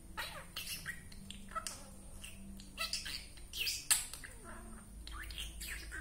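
Budgerigar chattering: an irregular run of short chirps and scratchy squawks, several a second, some gliding up or down in pitch.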